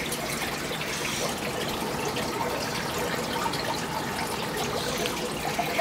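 Aquarium water trickling and bubbling steadily, from the tank's filter and streams of air bubbles.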